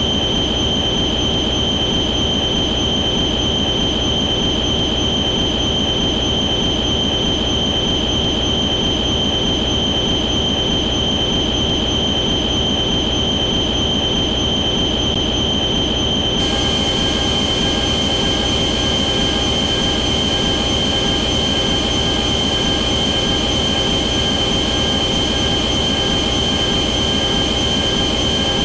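Sustained sound effect from the 1990s Godzilla films: a steady high-pitched screech over a dense low rumble, with more ringing tones joining abruptly about sixteen seconds in.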